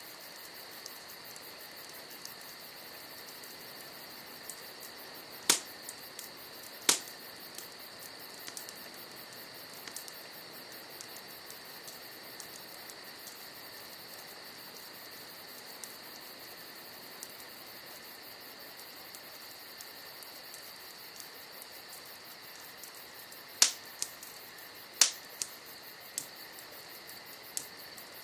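Wood campfire crackling, with a few loud sharp pops from the burning logs, two a few seconds in and a cluster near the end, over the steady high chirring of crickets.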